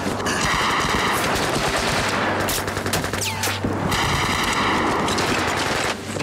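Battle sound effects of sustained machine-gun fire mixed with single gunshots, a dense, unbroken clatter of shots.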